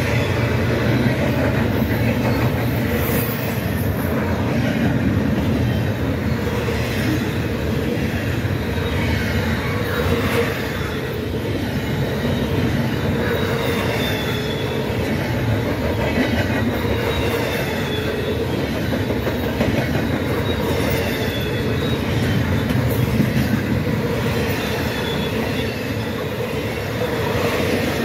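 Double-stack intermodal freight cars rolling past at close range: a steady heavy rumble of steel wheels on rail, with a faint high squeal from the wheels at times.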